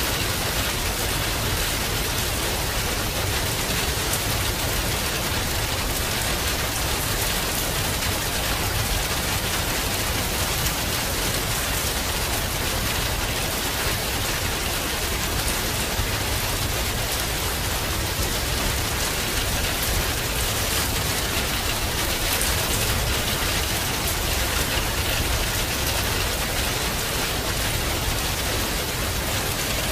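Steady rain falling: a dense, even hiss of rain with countless small drop ticks, holding the same level throughout.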